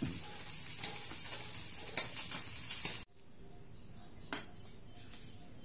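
Food sizzling as it fries in a pan on a gas stove, with a few clicks and scrapes of a metal spatula stirring it. The sizzle cuts off suddenly about three seconds in, leaving a fainter hiss and one knock.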